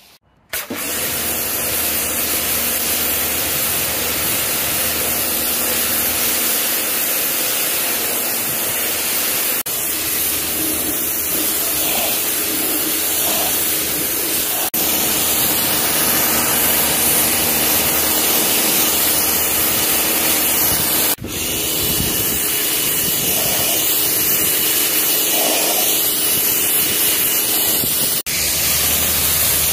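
High-pressure jet used in car washing hissing steadily over a machine hum, broken off briefly four times.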